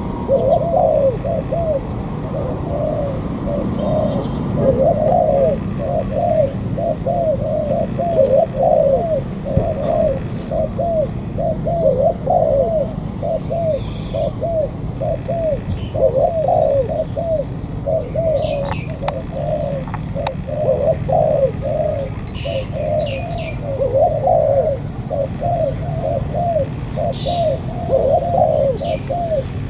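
Spotted doves cooing, a steady, unbroken run of short, arched coo notes. A few brief, high chirps from small birds break in here and there.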